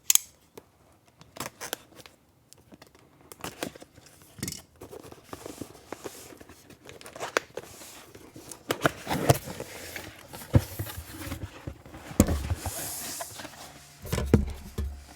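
Keyboard box being unboxed by hand: scattered clicks, scrapes, tearing and crinkling of cardboard and plastic packaging.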